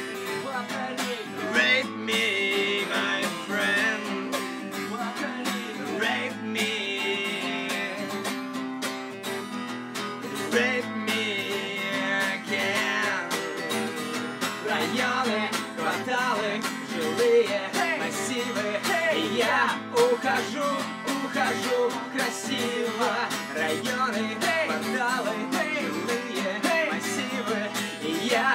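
Live acoustic music: an acoustic guitar strummed steadily, with a second guitar played laid flat across the player's lap, in a light pop medley.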